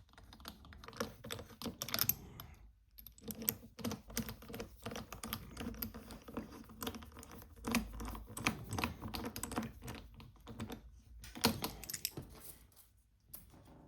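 Small metal screws and parts of a fuel pressure regulator clicking and tapping in quick, irregular succession as it is lined up and screwed back together by hand.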